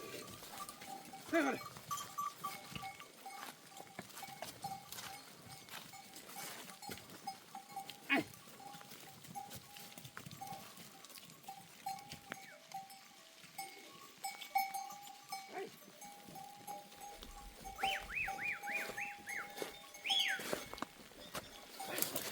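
Goat herd moving with its bells clinking steadily, and a few short goat bleats. A quick wavering whistle sounds near the end.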